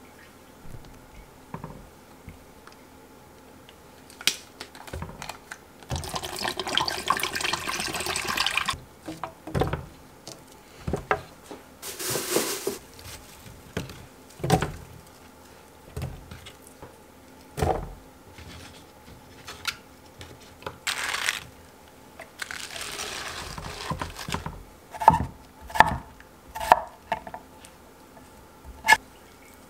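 Kitchen preparation sounds: liquid pouring in several stretches, with scattered knocks and clatter of food going into a plastic blender jar. Near the end come a few sharp knife chops on a wooden cutting board.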